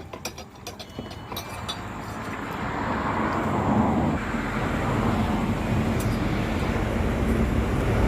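A few light metal clinks at the start, then a motor running with a steady low hum that grows louder over the first four seconds and then holds steady.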